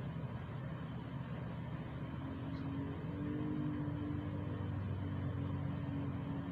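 Steady low mechanical hum, with a faint droning tone that comes in about two seconds in and grows a little louder.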